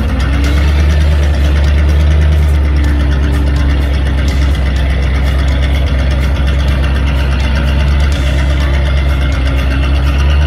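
Engine of a small tracked military carrier running steadily at low revs as it drives slowly across grass.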